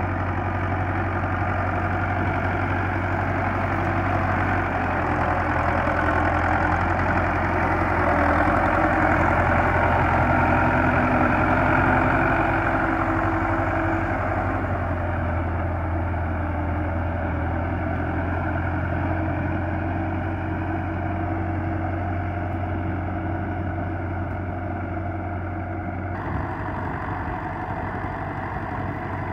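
Belarus 510 tractor's diesel engine running steadily as it pulls a cultivator through a flooded rice paddy. It grows louder as the tractor comes close about a third of the way in, then fades as it works away, with an abrupt change in tone near the end.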